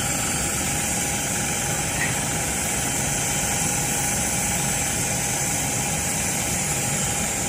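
A steady engine drone, unchanging throughout, with a faint thin steady tone running through it.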